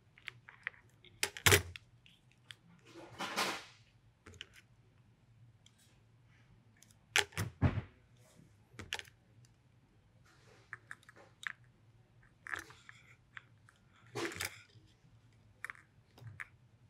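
Calipers and small metal gun parts handled on a workbench: scattered clicks, ticks and short scrapes as the caliper is slid and set and a metal probe rod is laid against it, with the loudest clicks about a second and a half in and again about seven seconds in.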